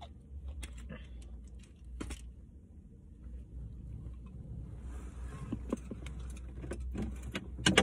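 Scattered clicks, taps and clothing rustle from someone twisting round in a car seat and rummaging in the back seat, over a steady low hum inside the car cabin. A longer hissing rustle comes about five seconds in, and a quick cluster of louder clicks near the end.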